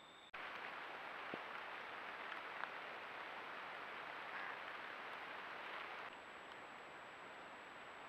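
Faint, steady hiss of a trail camera's microphone recording at night, with a couple of faint ticks. It breaks off briefly near the start, then drops to a quieter hiss about six seconds in.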